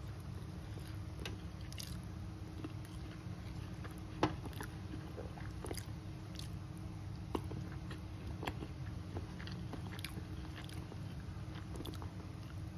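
Close-up eating sounds: a person chewing duck and rice, with scattered sharp crunches and mouth clicks, the loudest about four seconds in and again past seven seconds, over a steady low hum.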